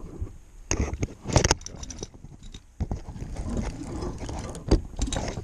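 Handling noises as a caught fish is put into a container: a few sharp knocks and thuds, two close together about a second in and another pair near the end, with rustling between them.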